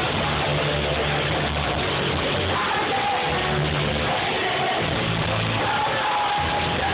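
Pop-punk rock band playing live with a singer, recorded from the crowd on a phone: loud and dull-toned, with no high end.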